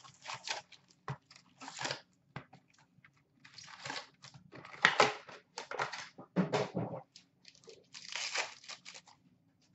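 Cardboard hockey card box being opened and its foil-wrapped packs pulled out and handled: a run of short crinkling, rustling and scraping noises with a few light clicks.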